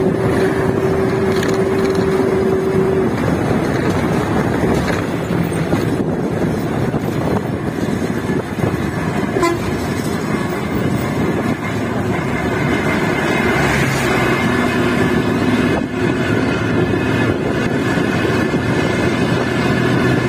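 Moving bus riding over the road, a steady mix of engine, tyre and wind noise. A vehicle horn sounds as a single held tone that stops about three seconds in.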